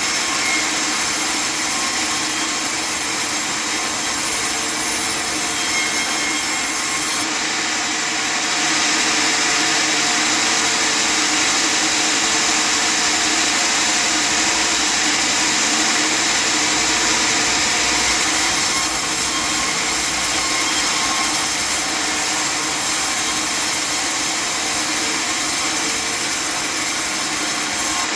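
A custom-built table sawmill cutting through wood, a steady loud sawing noise with a slight change in its sound about seven seconds in.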